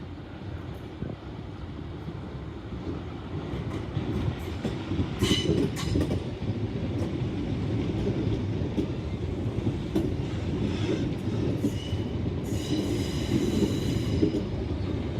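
Southeastern Networker electric multiple unit (Class 465/466) running through the station, its wheels clattering over the rail joints and growing louder. There is a brief high squeal about five seconds in and a hiss near the end.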